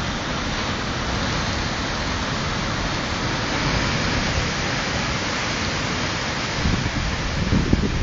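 Storm surf surging and foaming against a rocky shore: a steady, even rush of churning water. Near the end, wind starts buffeting the microphone in low, uneven gusts.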